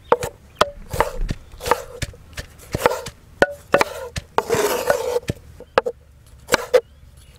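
Large kitchen knife chopping tomatoes on a wooden cutting board: irregular sharp knocks of the blade hitting the board, about two a second, with a short scrape a little past halfway.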